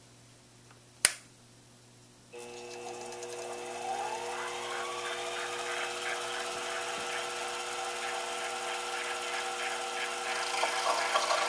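A sharp click from the switch, then about a second later the Sherline lathe's motor starts and its whine rises in pitch as it speeds up, then runs steadily. Near the end a 1/4 inch drill begins cutting into the spinning part, adding a rough rhythmic scraping.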